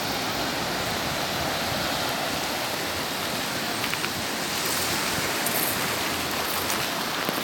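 Sea waves washing on the shore: a steady rushing noise with an uneven low rumble underneath.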